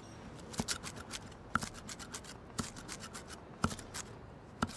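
A mezzaluna chopping fresh coriander on a chopping board: sharp knocks of the blade about once a second, some in quick pairs.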